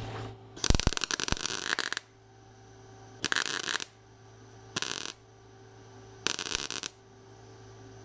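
MIG welder set to 15 volts laying four tack welds on a sheet-steel patch panel: crackling bursts of arc, the first about a second and a half long, the other three under a second each. Between the tacks a faint steady hum.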